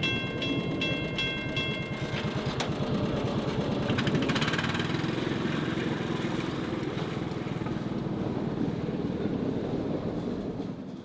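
Level crossing's mechanical bell ringing in quick repeated strokes, stopping about two seconds in. A narrow-gauge Puffing Billy Railway train then passes over the crossing with a steady rumble and wheel clatter.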